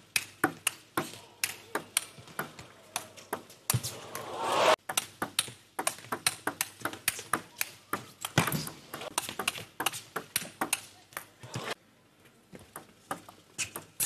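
Table tennis rallies: the celluloid ball clicks off the bats and the table in quick, uneven strings of sharp ticks, several a second, with short breaks between points. About four seconds in, a brief rising swell of noise cuts off abruptly.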